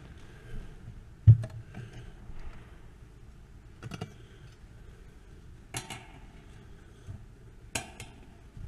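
Metal altar vessels being handled: a dull thump about a second in, then three sharp clinks with a short ring, about two seconds apart, as a monstrance and its lunette are opened and set on the altar.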